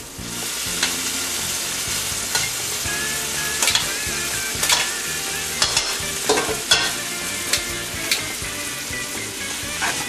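Drained spaghetti being tossed with metal tongs in a hot pan of Roma tomato and garlic sauce: a steady sizzle, with the tongs clicking against the pan now and then.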